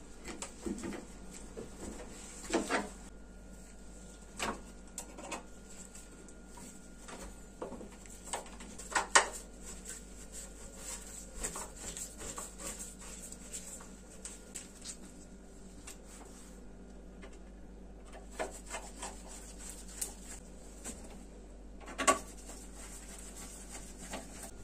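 Gloved hands working at a dishwasher's lower panels and fittings: irregular rubbing and scraping with scattered light knocks and clicks, a sharper knock about nine seconds in and another about twenty-two seconds in.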